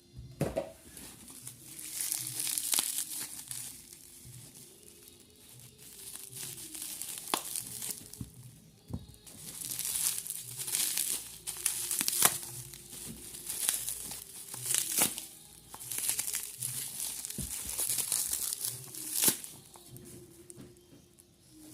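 Toy packaging being opened by hand: plastic and paper crinkling and tearing in repeated bursts, with a few sharp clicks.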